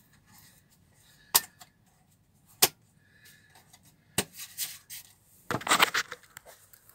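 Handling noise: three sharp clicks or knocks spread over about three seconds, then a short burst of rubbing and rustling near the end, as the tablet is picked up.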